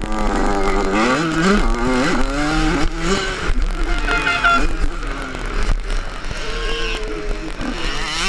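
Yamaha 85 cc two-stroke motocross bike engine revving hard and dropping back again and again as it shifts gears at race pace, with a low wind rumble on the helmet microphone.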